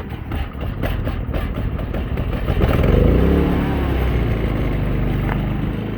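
Predator 3500 inverter generator's single-cylinder engine running just after an electric start, revving up about halfway through and then settling to a steadier speed.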